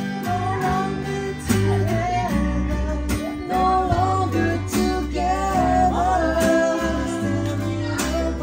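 Small live band of acoustic guitars and electric bass playing a slow song without words: strummed and picked chords over a steady bass line, with a melody line that bends and slides above them.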